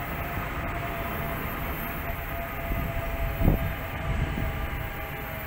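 Electric suburban multiple-unit train running past on the track: a steady low rumble with a few faint held tones from its traction equipment. A single low thump comes about three and a half seconds in.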